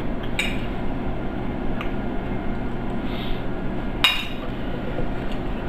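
A metal fork clinking against a small plate three times, the sharpest clink about four seconds in, over a steady low hum.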